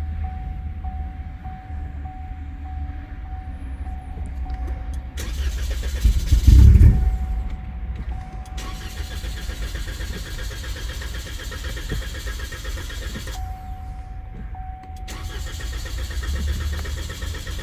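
The starter cranks the 2.0 L turbo four-cylinder of a 2013 Cadillac ATS in a start attempt. A loud surge lasts about two seconds, beginning about five seconds in, over a steady low rumble. The engine is hard to start and misfires.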